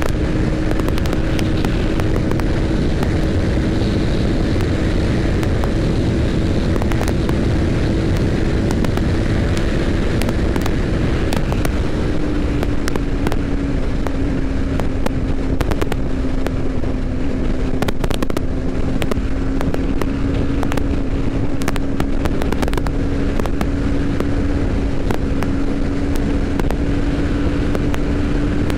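TVS Apache RR 310 single-cylinder engine running at steady highway speed, with a sustained engine note that sags slightly about twelve seconds in and then slowly climbs again as the throttle is eased and reopened. Constant wind rush with frequent brief crackles runs over it.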